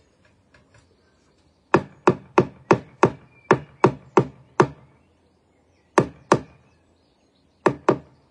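Hammer striking the timber wall frame: a quick run of nine sharp blows at about three a second, then two pairs of blows.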